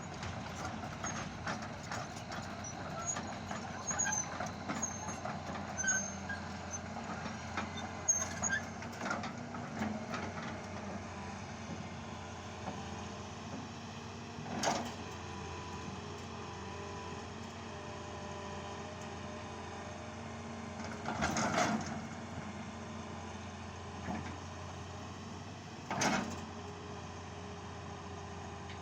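Engine of heavy road-construction machinery running steadily, with a few sharp clanks, three of them standing out about halfway through and near the end.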